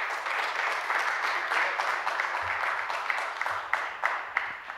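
Audience applauding after a speech, the clapping thinning to a few separate claps and fading near the end.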